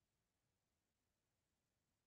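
Near silence: the soundtrack is muted, so the clipper is not heard.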